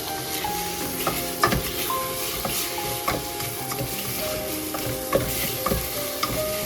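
Rice frying in oil in a pot, with a steady sizzle, while a spoon stirs it and knocks and scrapes against the pot about a dozen times.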